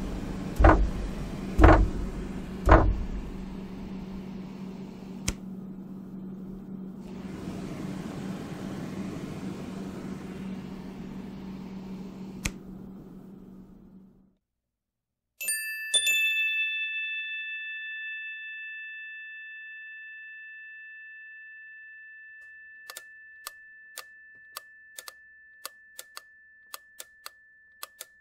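A low steady hum with four loud knocks in the first three seconds fades out about fourteen seconds in. After a short silence, a single chime-like ding rings on for several seconds and slowly dies away. Irregular sharp clicks then start over the fading ring.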